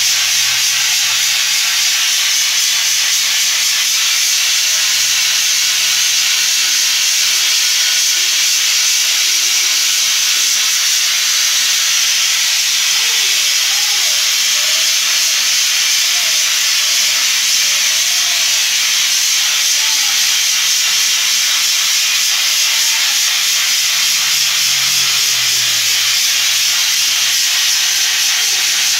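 Handheld compressed-air spray gun hissing steadily as it sprays a chrome coating onto a glass goblet.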